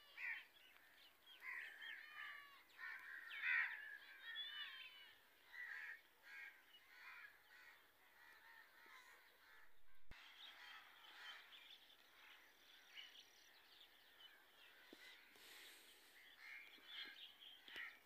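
Faint chorus of many birds calling and chirping outdoors, dense overlapping calls that thin out in the second half.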